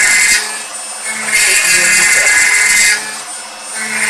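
CNC router spindle with an 8 mm end mill high-speed (adaptive) milling POM acetal plastic, a high whining cut. The cutting noise swells loud for about a second and a half, then drops back, as the cutter sweeps into and out of the material, twice.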